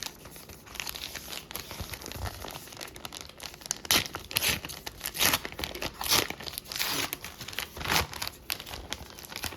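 A trading-card pack's wrapper being torn open and crinkled: a string of short rips and crackles, loudest in the second half.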